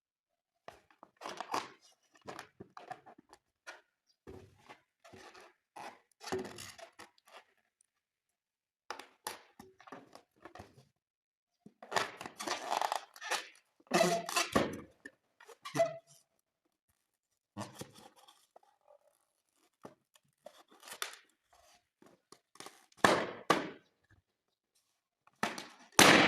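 Air-filled rubber balloons being handled, rubbing and squeaking in short irregular bursts, then a single sharp bang near the end as a balloon pops.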